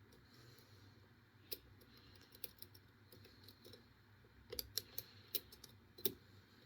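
Lock pick clicking against the pin stack of a 5-pin all-brass padlock during single-pin picking under tension. The clicks are faint and scattered, with a quick run of them in the second half and the loudest near the end.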